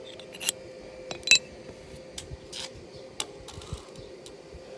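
Light metallic clinks and taps from a homemade metal gate hinge and its parts being handled and tried. There are about five separate clicks, the two loudest about half a second and a second and a quarter in.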